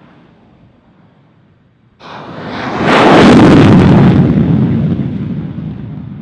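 F-16 Fighting Falcon jet engine at takeoff power during the takeoff roll: faint at first, then loud jet noise starting suddenly about two seconds in, strongest as the jet passes and fading as it moves away down the runway.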